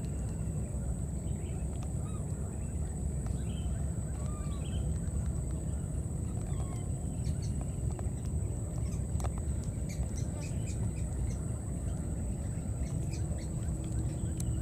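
Baby monkey giving scattered faint, short squeaky calls, with light rustling clicks in the middle, over a steady low rumble and a thin high whine.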